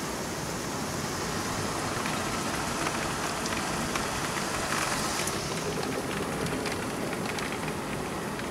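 Heavy thunderstorm rain falling steadily, with a few faint ticks of single drops.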